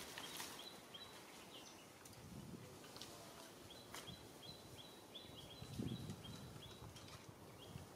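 Faint outdoor background with a bird giving runs of short, high chirps several times a second, and a few soft low rumbles.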